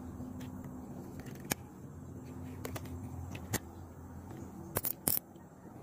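A handful of sharp clicks and taps from fishing tackle being handled, the last two close together near the end, over a low steady hum that fades out about four seconds in.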